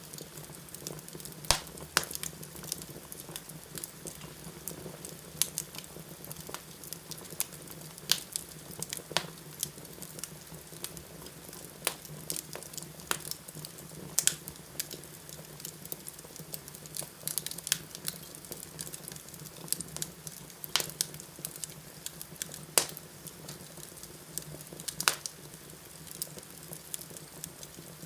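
Wood fire burning in a fireplace: irregular sharp crackles and pops over a steady low hiss and hum.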